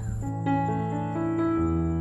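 Gentle background music of held, melodic notes that change pitch in steps, coming in about a third of a second in as the outdoor insect and bird sounds drop away.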